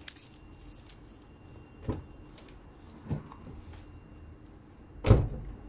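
Someone climbs into a small hatchback car: two short knocks, then the driver's door shut with a solid thump about five seconds in.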